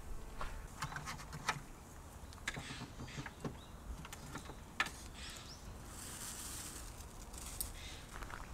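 Scattered light clicks and rustles of cables and plugs being handled and connected to a portable power station, over a faint outdoor background.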